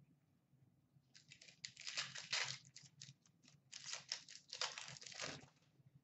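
An Upper Deck hockey card pack being torn open and its wrapper crinkled. The crackly rips and crinkles come in two spells, starting about a second in and dying away near the end.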